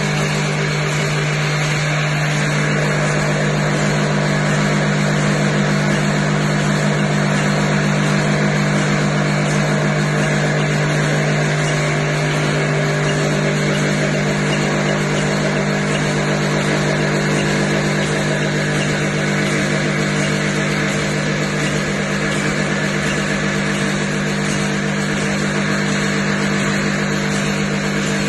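Strip packaging machine running steadily: a constant low motor hum under a dense mechanical noise, with no change throughout.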